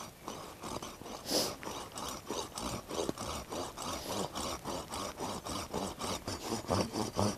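Coarse-toothed hand saw cutting across a stick of wet, freshly peeled wood, in quick even back-and-forth rasping strokes, about three or four a second. The wood is very wet, so the saw drags a little in the cut.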